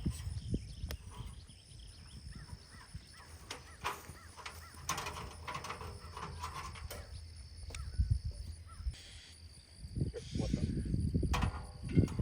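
Scattered clicks and knocks of tools and metal parts being handled while a bandsaw mill blade is changed, with louder knocks near the end.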